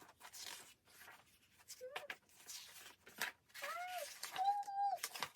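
Paper and packaging rustling in bursts as album inserts are handled, with two short high-pitched vocal sounds near the end.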